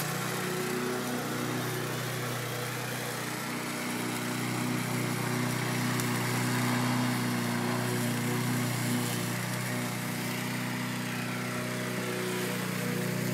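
Racing lawn mower engines running steadily, growing a little louder about halfway through.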